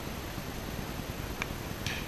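A lull between low-noise fireworks: a steady faint hiss, one small pop about one and a half seconds in, and near the end the hiss of the next low-noise firework starting to fire.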